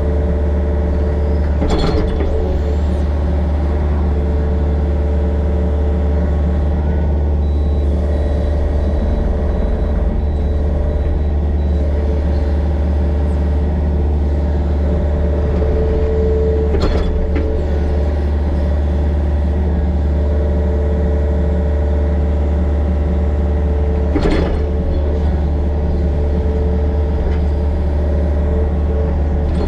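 Excavator's diesel engine running steadily under work, with a constant low drone. A few sharp clunks cut through it, about two seconds in, midway and near the end.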